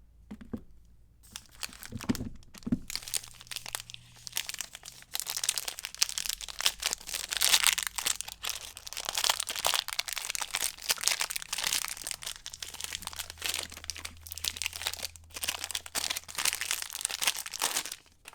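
Soap packaging being unwrapped by hand: continuous crinkling and crackling of the wrapper, starting about a second in and stopping near the end, with a couple of soft knocks early on.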